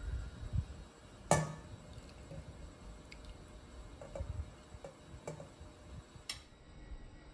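Metal ladle clinking against a stainless steel pot and a ceramic bowl as soup is ladled out. One sharp clink comes about a second in, followed by several lighter taps.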